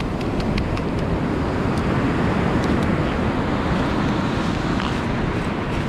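Surf washing up the beach: a steady rush of a wave's wash over the sand, mixed with wind on the microphone.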